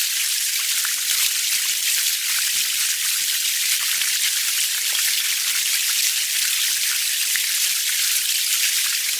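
Steady rain falling, a dense even hiss scattered with countless small drop ticks.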